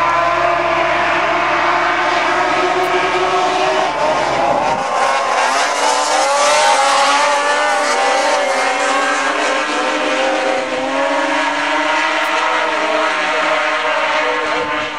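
A pack of racing snowmobiles' two-stroke engines running at full throttle, many engine notes overlapping and rising and falling in pitch together. The low rumble drops away about five seconds in as the pack pulls away.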